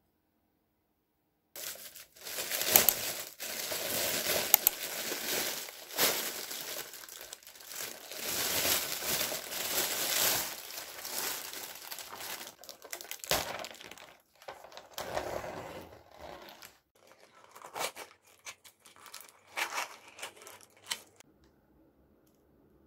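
Thin plastic carrier bag rustling and crinkling as a takeout meal is unpacked, with sharp crackles as it is crumpled. The handling thins into scattered plastic crackles and clicks from the container lids and fades out near the end.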